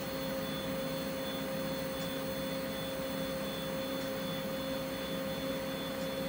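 Bad Robin open-source 3D printer running a print: a steady whine from its stepper motors over the even whirr of the radial blower fan on the print head.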